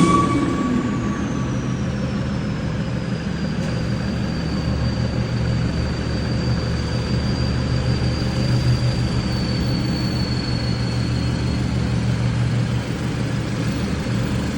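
Toyota Hilux engine with a straight-piped exhaust idling steadily, with a high thin whine that slowly falls in pitch over about the first ten seconds.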